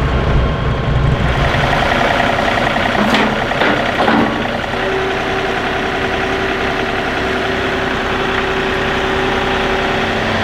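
John Deere compact diesel tractor's engine running steadily as it is driven up a ramp into a cargo trailer. There are a couple of sharp knocks about three and four seconds in, and a steady whine joins the engine sound about halfway.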